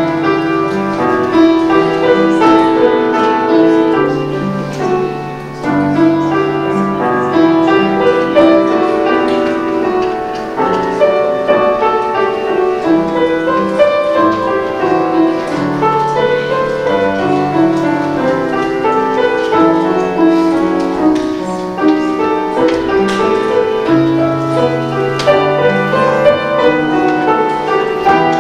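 Piano music: a continuous instrumental piece of chords and melody.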